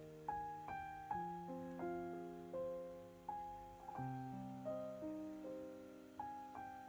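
Gentle, slow piano music: single notes and soft chords struck about twice a second, each left to ring and fade.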